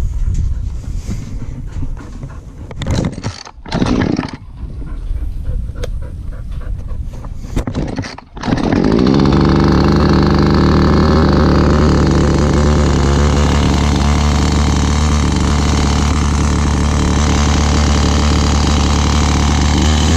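Uneven rustling and bumping for several seconds, then a Husqvarna 450 Rancher's two-stroke chainsaw engine catches about eight seconds in and runs steadily.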